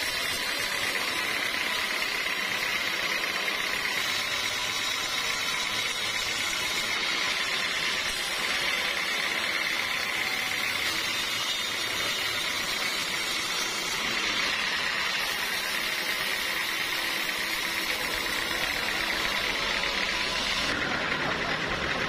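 Band sawmill running steadily, its drive and blade giving a constant high whine over mechanical noise.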